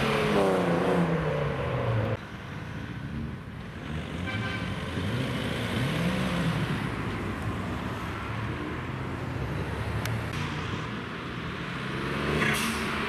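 A lowered BMW E36 convertible drives past, its engine note falling in pitch as it goes by and away. After about two seconds the sound drops off suddenly, and quieter engine and road noise of other cars leaving follows, with another car's engine rising and falling in pitch as it passes.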